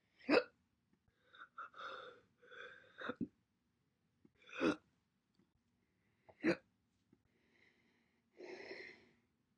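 A person hiccuping: four short, sharp single hiccups a second or two apart, with softer breaths between them.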